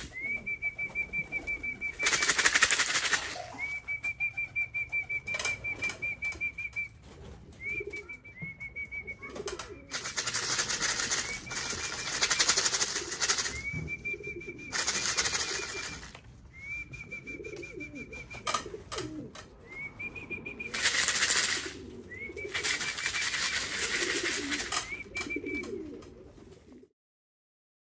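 Racing pigeons cooing faintly at the loft, under a high, steady, whistle-like tone that sounds again and again, each a second or more long, and several loud rushes of noise. The sound cuts off shortly before the end.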